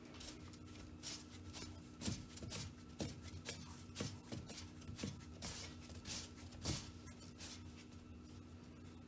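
Hand pressing and tossing chicken strips in dry seasoned flour in a stainless steel bowl: soft, irregular scuffing and rustling of the flour, with a few dull bumps against the bowl, loudest about two seconds in and near the end.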